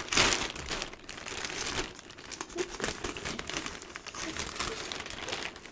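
Plastic mailer bag crinkling and crackling as it is handled and cut open with kitchen scissors, loudest at the start.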